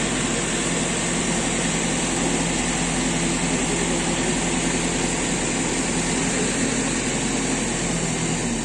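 JCB 3DX backhoe loader's diesel engine running steadily, with an even engine note.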